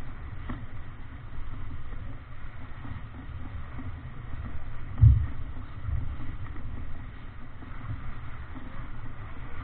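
Wind buffeting the microphone and water rushing along the hull of a Davidson 36 sailboat heeled over and beating through rough water, with one loud thump about five seconds in.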